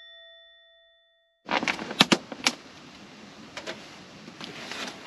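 A bell-like ding ringing out and fading away over the first second, followed by a short silence. Then a hiss of background noise starts, with several sharp clicks and knocks, the loudest about half a second after it begins and another near the end.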